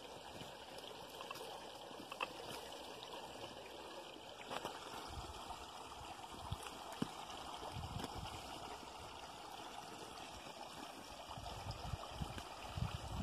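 Steady, faint trickle of running water, with scattered low thumps and rumbles from about halfway through.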